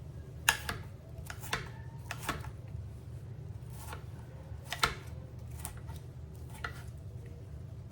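Kitchen knife dicing tomato on a cutting board: irregular, sharp knife strikes, some in quick pairs, over a steady low hum.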